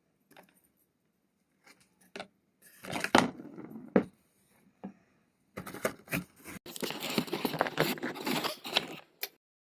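Handling noises of a homemade vending machine: scraping, crinkling and sharp taps in uneven bursts, loudest around three seconds in and through a busier stretch in the last few seconds, which cuts off shortly before the end.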